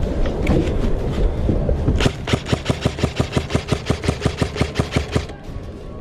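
Airsoft gun firing on full auto, a long burst of sharp, even shots at about ten a second, starting about two seconds in and lasting about three seconds. Before the burst there is a heavy low rumble of handling or wind noise on the microphone.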